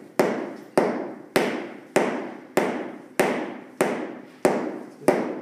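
Steady, evenly spaced blows on hardwood flooring, nine in all at roughly one and a half per second, each a sharp knock with a short ring. They are the sound of a board being knocked into place during a single-board repair.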